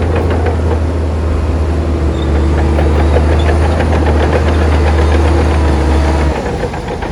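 Heavy construction machine's diesel engine running steadily, pulling harder for a few seconds, then dropping off abruptly about six seconds in. Rapid metallic clattering is heard in the first second.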